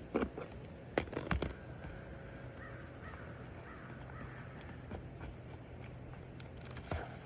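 A few sharp knocks and clatters of roofing work on shingles, several close together about a second in and another near the end, with a faint wavering call-like sound in between.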